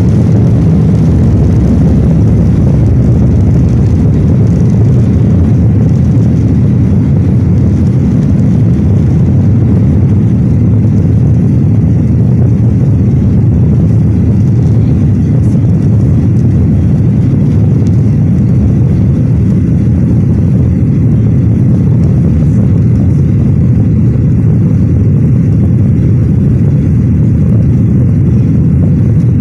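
Jet airliner's engines at takeoff power, heard from inside the cabin: a loud, steady, deep noise through the takeoff roll, liftoff and initial climb. The thin upper hiss fades about a third of the way in as the plane leaves the runway.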